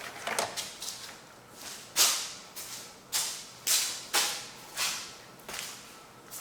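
A run of short swishing strokes, about one every half second, each starting sharply and fading quickly.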